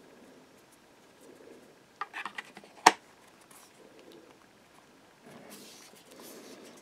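Copper metal Google Home base being handled and fitted back onto the speaker: a few light clicks about two seconds in, then one sharp click a moment later as the base is pushed on, amid soft handling rustle.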